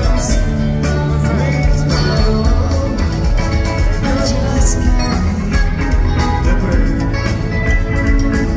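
Live rock band jamming: several electric guitars, bass and drums playing an instrumental groove.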